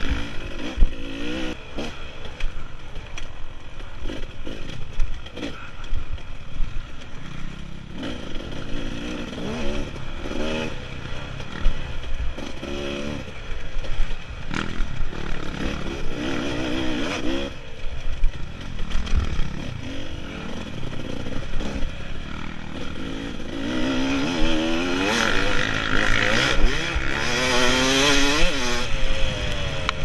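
Dirt bike engine heard close up from the rider's helmet, revving up and down as the throttle is worked over a rough trail, with knocks and rattles from the bumps. Late on it pulls louder and holds higher revs for a few seconds.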